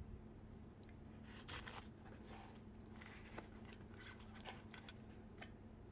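Faint rustling and light clicks as the lock's parts and packaging are handled and taken out of the box, over a low steady hum.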